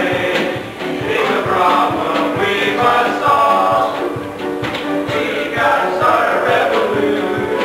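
A chorus of voices singing a musical-theatre show tune together.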